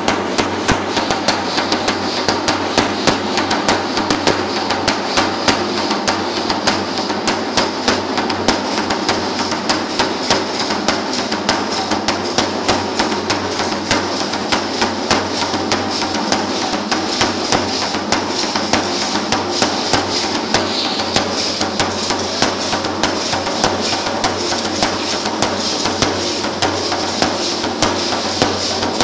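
Matachines dance percussion: a drum and the dancers' rattles keeping a steady, fast beat of sharp strikes, about three a second, with a continuous high rattling hiss over it.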